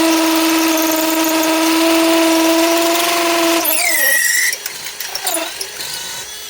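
Metabo HPT DV18DBFL2 18-volt cordless hammer drill running steadily under load, boring into brick with a worn 3/8-inch by 8-inch bit. About three and a half seconds in the steady whine drops away, followed by a few short spurts and scraping before it stops near the end.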